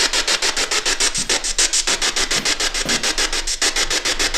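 Ghost box (spirit box radio scanner) sweeping through radio stations: choppy static in rapid even bursts, about eight a second.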